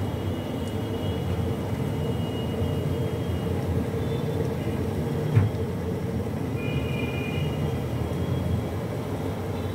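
Steady low rumbling background noise with a constant hum, faint thin high tones coming and going, and a single sharp knock about five seconds in.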